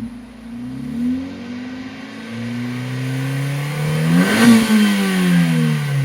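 Honda Civic FN1's 1.8-litre four-cylinder engine revving through a Ragazzon aftermarket exhaust. There is a short blip about a second in, then a longer rev that climbs to its loudest about four and a half seconds in and falls back.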